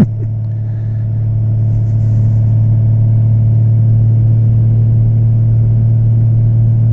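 Riding noise on a 2014 Honda Valkyrie: the 1832cc flat-six engine and wind make a steady low rumble that swells over the first couple of seconds, then holds level. A brief thump right at the start.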